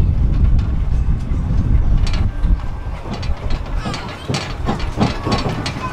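Riding in a DOTTO road train: the steady low rumble of the moving train, then about two seconds in the rumble eases and the carriage rattles and knocks repeatedly, with a few brief squeaks.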